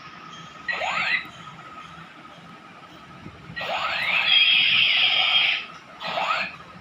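Electronic toy pistol sound effects: three bursts of hissing, rising sweeps. The middle burst is the longest, about two seconds, with a steady high tone inside it.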